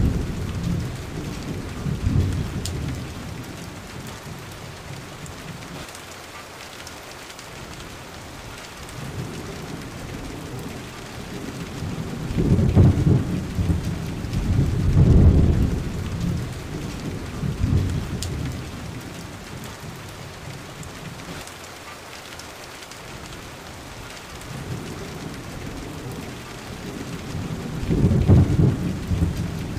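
Thunderstorm: steady rain with repeated rolls of low thunder that swell and fade, the loudest about halfway through and again near the end.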